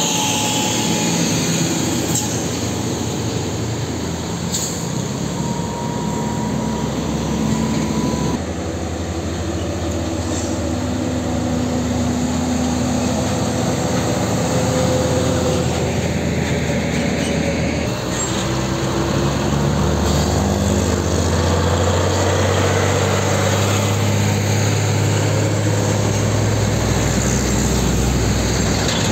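Heavy diesel tanker trucks, one an Isuzu tractor unit hauling a tank semi-trailer, driving past one after another: steady engine drone with tyre and road noise. The sound changes abruptly twice where one passing truck gives way to the next.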